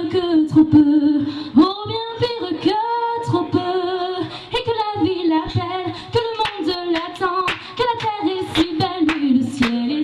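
A woman singing a French song a cappella into a microphone, holding notes with vibrato. Sharp percussive clicks keep time behind her, more regular in the second half.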